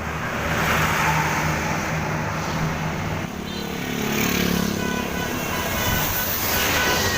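Large bus engine running with road and traffic noise, a steady low hum under a rushing haze. Faint steady higher tones come in about three seconds in.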